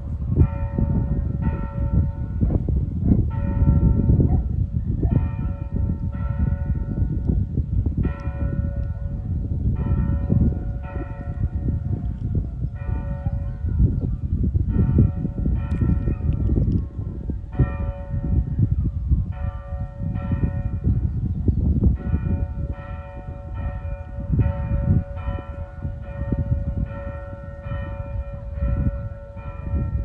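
Church bells pealing, struck in quick repeated strokes about two a second, each ringing on over the next, over a steady low rumble.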